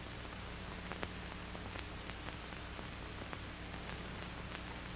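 Steady hiss and low hum of an old film soundtrack, with a few faint scattered clicks and no speech or music.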